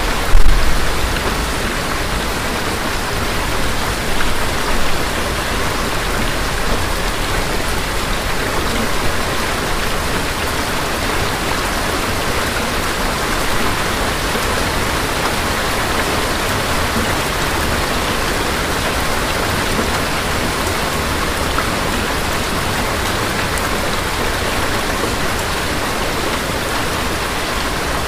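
Steady rain with a sudden clap of thunder about half a second in, rumbling low and fading over the next few seconds. A second, smaller rumble comes around four seconds in.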